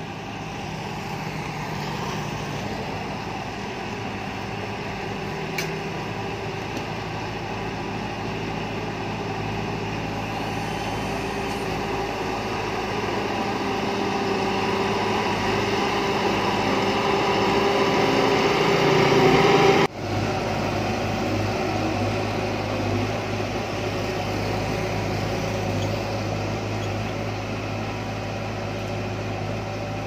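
Shantui crawler bulldozer's diesel engine running while it pushes dirt, growing louder up to a sudden break about two-thirds through, then running steadily again.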